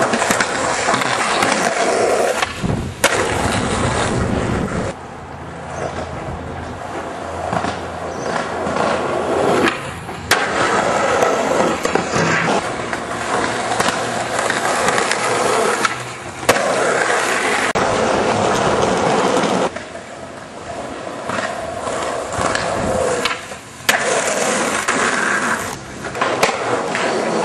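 Skateboard wheels rolling over concrete and asphalt, with sharp clacks from the board several times as tricks pop and land.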